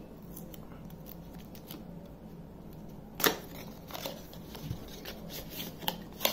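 Cardboard smartwatch box being handled and opened, its inner tray sliding out of the printed sleeve: soft scraping and rustling of card, with a sharp click about three seconds in and a few lighter clicks after.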